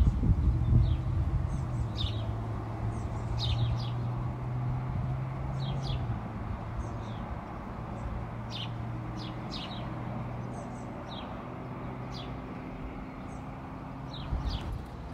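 Small birds chirping in short, scattered calls over a steady low hum and a soft hiss.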